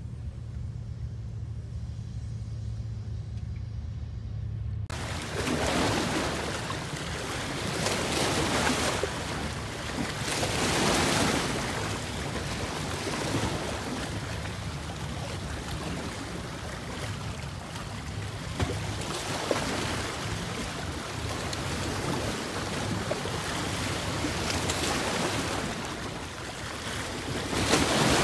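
Small waves washing and splashing against shoreline rocks, surging every two to three seconds, with some wind on the microphone. For about the first five seconds only a low steady rumble is heard, which gives way abruptly to the waves.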